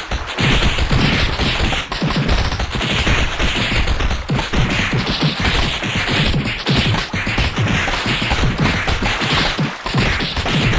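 A dense pile-up of many sneezes layered over one another into a loud, continuous barrage of sharp bursts with no gaps between them.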